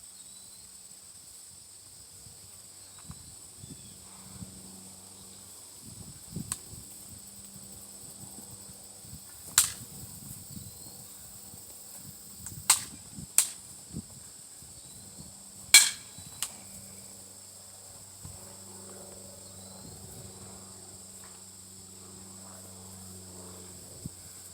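Archery shots: a handful of sharp knocks, four of them loud, spread through the stretch. Insects, likely crickets, keep up a steady high drone throughout.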